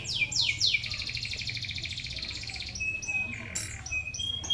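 Five-day-old sogon nestlings begging while being hand-fed: a few quick falling chirps, then a long, rapid buzzing trill, then short thin whistled notes near the end.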